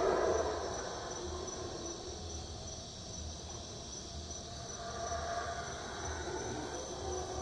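Black howler monkeys howling: a deep, rough chorus tails off at the start and builds again from about five seconds in. A steady high insect trill runs underneath.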